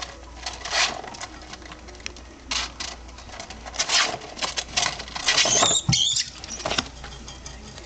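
Large feeder rats scrabbling and scratching: a run of short, scratchy noises, with a brief high squeak a little over five seconds in.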